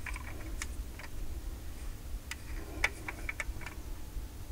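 Light, irregular clicks and taps from a 1:36 diecast Kinsmart Subaru Impreza WRC 2007 model car being handled and turned over in the fingers.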